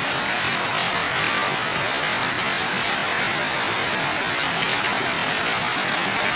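Heavy rain falling steadily on garden plants and the ground, an even hiss.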